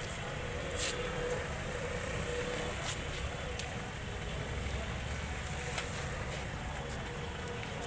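Steady outdoor background noise: a low rumble under a light hiss, with a few faint clicks.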